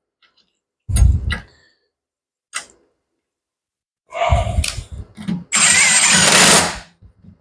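Cordless impact driver spinning a bolt into the alternator's mounting bracket, a dense burst of about a second with a thin high whine, the loudest sound here. Before it, a few clunks and clicks of the metal bracket and bolt being handled against the alternator.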